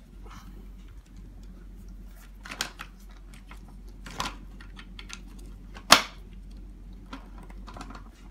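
Light plastic clicks and knocks as a plastic cylinder is pushed down over the axle into the front swivel housing of a Mountain Buggy Urban Jungle stroller, a few sharper clicks among them, the loudest about six seconds in.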